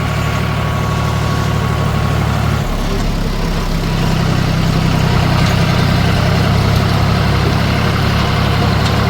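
John Deere 5310 tractor's three-cylinder diesel engine running steadily. About three seconds in its note shifts and it grows slightly louder.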